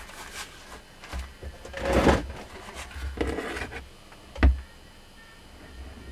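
Handling noises as a gloved hand picks up a rewound angle-grinder armature from a steel workbench: a scraping rub about two seconds in, a second, softer rub, and a single sharp knock about four and a half seconds in.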